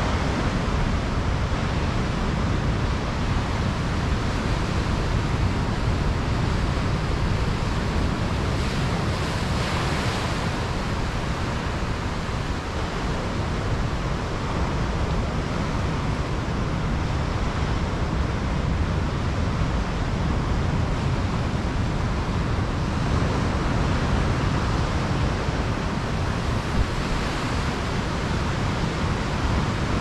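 Pacific Ocean surf breaking on a sandy beach, with foam washing up over the sand: a steady rushing wash of surf that swells slightly about a third of the way through and again near the end.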